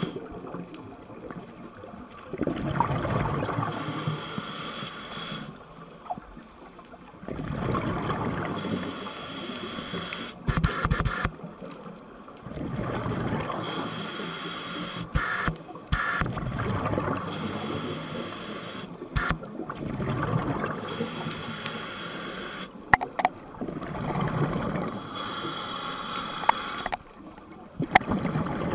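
Scuba regulator breathing heard through an underwater camera housing: bubbling, rushing breaths that swell and fall back every few seconds, with a few sharp clicks in between.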